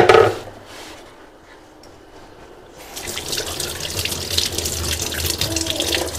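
A short knock at the very start, then a kitchen tap turned on about three seconds in, water running into the sink and splashing as eggs are washed by hand.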